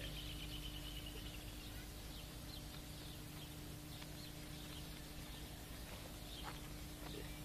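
Birds chirping faintly: a high trill that falls slightly and ends a second or so in, then scattered short chirps. Under them runs the steady hum and hiss of an old film soundtrack.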